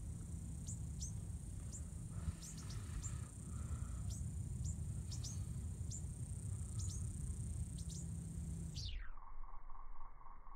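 Outdoor wetland ambience: a steady high insect whine with short, sharp falling chirps every half second or so over a low rumble of wind. Near the end the whole sound slides steeply down in pitch as the iPhone slow-motion clip slows its playback, leaving a low muffled hum.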